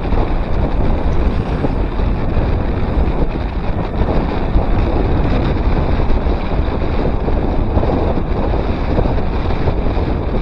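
Steady wind rush buffeting a Garmin VIRB action camera's microphone as a bicycle descends at about 20 mph.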